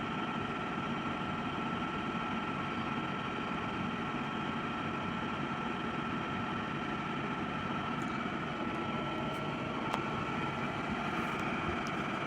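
Steady mechanical hum of running machinery, with a thin constant whine over it.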